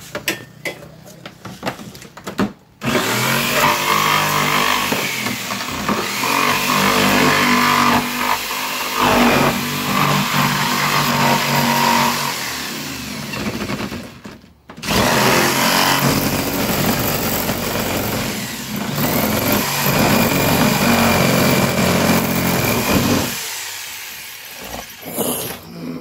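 Jigsaw cutting a hole through the thick insulated plastic lid of a large ice chest. The motor starts about three seconds in and runs in two long stretches, with a brief stop around the middle, then winds down near the end.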